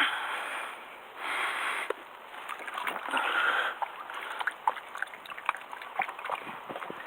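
Water sloshing and splashing against the hull of a moored fishing raft-boat in several swells, each about a second long, followed by scattered small sharp clicks.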